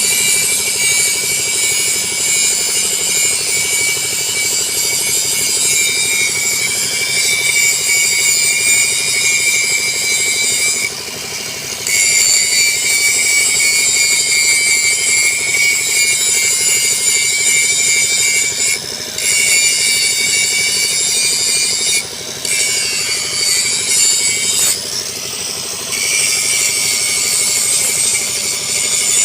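Angle grinder working mild-steel pipe: a loud, steady high-pitched whine with a low hum underneath, dropping away briefly about four times.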